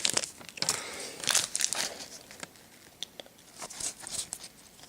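Foil booster-pack wrapper crinkling and tearing as it is opened by hand, loudest in the first two seconds, then fainter rustling.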